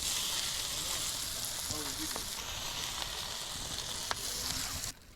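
Food sizzling on a grill: an even, crackling hiss that cuts off suddenly near the end.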